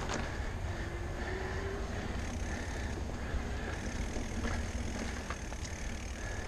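Electric mountain bike ridden fast over a dirt singletrack: a steady low rumble of tyres and frame, with a faint motor whine that comes and goes and a few sharp rattles from the bike.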